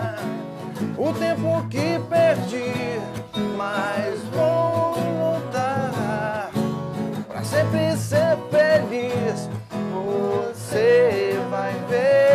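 Band music: acoustic guitar strumming under a pitched melodic lead line with sliding notes, an instrumental passage of a romantic pop song.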